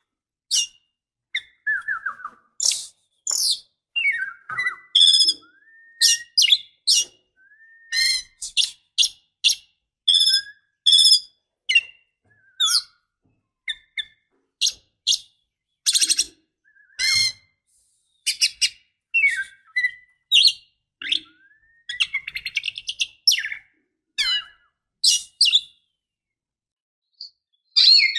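Female oriental magpie-robin calling: a quick string of short chirps and whistled notes, some of them rising, about one or two a second, then silent for about two seconds near the end. These are the calls of a female in breeding condition calling to a male.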